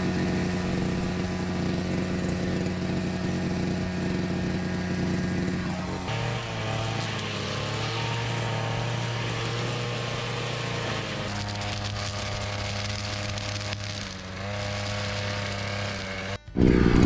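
Grass trimmer's small engine running steadily while cutting grass, its pitch stepping up about a third of the way in and back down a few seconds later.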